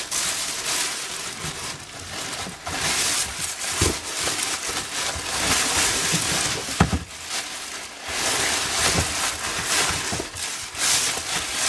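Thick plastic sacks crinkling and rustling as they are handled and pulled about inside a cardboard box, with a couple of dull thumps from their heavy contents knocking against the box.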